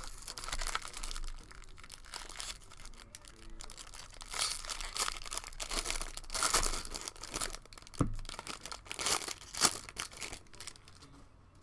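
Foil wrapper of a 2019 Bowman Draft Super Jumbo card pack being torn open and crinkled in the hands, in repeated rustling bursts with a few sharp crackles near the end.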